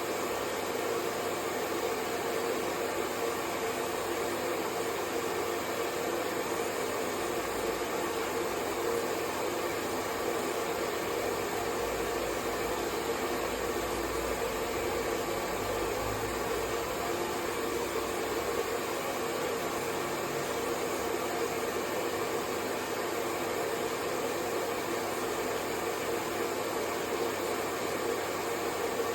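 Hair dryer running steadily: an even rush of blown air with a faint hum and no change in level.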